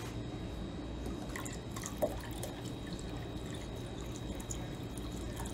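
Brandy poured from a glass bottle into a glass measuring cup of liquid: a faint trickle and splash, with one small sharp knock about two seconds in, over a low steady hum.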